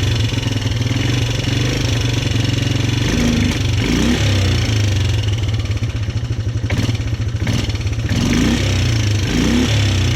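Polaris Sportsman 300 ATV's single-cylinder four-stroke engine idling, revved up and back down briefly twice, about three seconds in and again near the end. It is running freshly tuned up with a new iridium spark plug.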